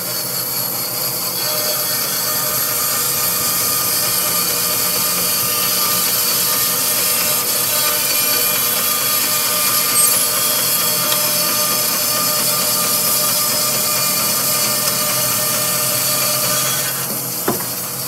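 Jet 20-inch bandsaw running a carbide-tipped Laguna Resaw King blade, resawing a slab off a dogwood log: a steady motor hum with the cutting noise of the blade in the hardwood. The cutting noise starts about a second in and falls away near the end as the cut finishes, followed by a single short knock.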